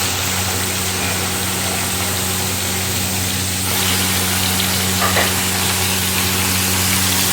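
Minced meat sizzling as it fries in oil with onion and ginger-garlic paste in a cooking pot, with a steady low hum underneath.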